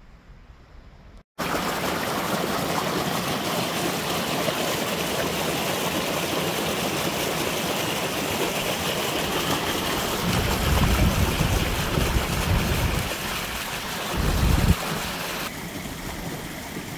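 Shallow forest brook rushing steadily over stones and roots, a continuous broad water noise that starts abruptly about a second in. A low rumble swells for a few seconds past the middle, and the rush drops a little near the end.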